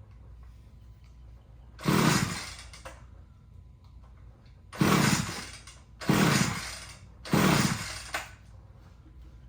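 Gas string trimmer's recoil starter pulled four times, the engine turning over with each yank but never catching: the trimmer won't start.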